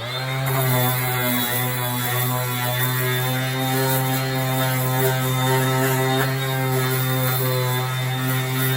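Battery-powered sander clamped in a vise, switched on and running steadily with a constant motor hum while a third-brake-light cover is sanded against it.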